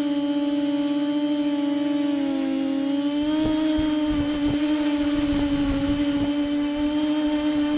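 Multirotor drone's electric motors running steadily with a strong hum near 300 Hz and higher overtones that waver a little in pitch. The uploader suspects the ESCs or motor bearings are behind the weird sound and vibrations. From about three seconds in, gusty low rumbling joins it on the microphone.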